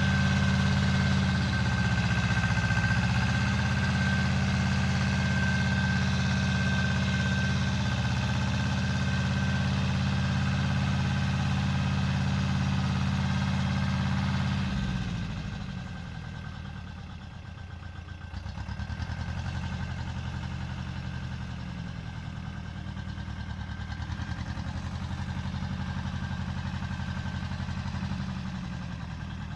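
Pasquali 425 compact tractor's engine running steadily under load while pulling a mouldboard plough through the soil. About halfway through it turns quieter and its note wavers as the tractor moves away.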